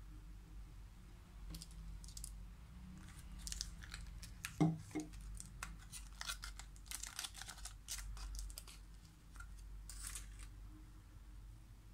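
Thin foil wrapper of a small chocolate being peeled open and crumpled by hand: a run of crisp, irregular crinkles and crackles. There is a single louder knock a little before the middle.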